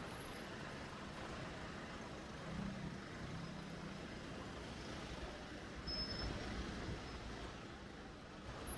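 Street traffic: cars driving slowly past at close range, with engine hum and tyre noise, the hum swelling as one car passes close about three seconds in.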